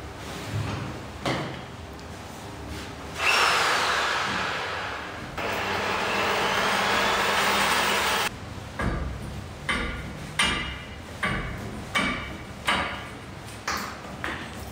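Angle grinder cutting through old metal water pipe for about five seconds, in two stretches. It is followed by a run of about nine sharp knocks, a little over one a second.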